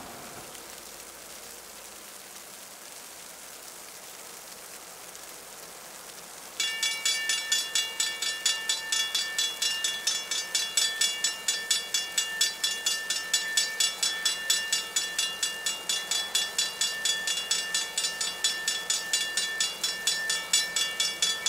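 Railroad grade-crossing bell starts about six and a half seconds in and rings with rapid, evenly repeated strokes, warning of an approaching train. Before it there is only a faint steady hiss.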